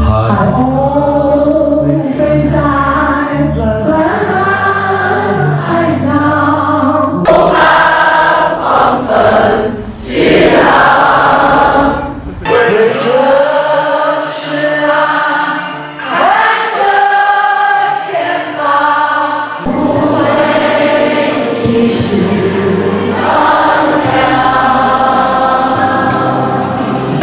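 A choir singing over instrumental backing, with long held notes and changing bass notes beneath.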